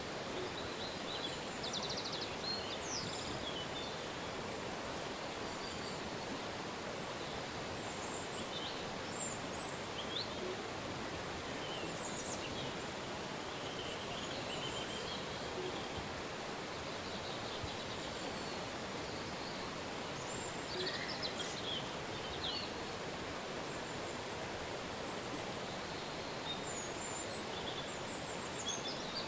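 River water rushing steadily, with small birds chirping and trilling now and then over it.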